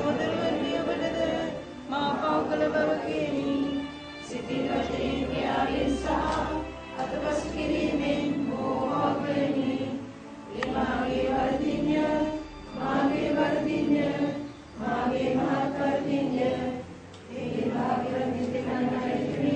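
A congregation of men and women chanting a prayer together in unison, in phrases of about two seconds separated by brief pauses.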